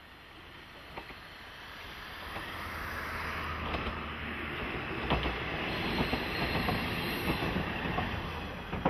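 KiHa 40-series diesel railcar approaching and passing: the engine's low drone grows steadily louder, with the clicks of wheels going over rail joints.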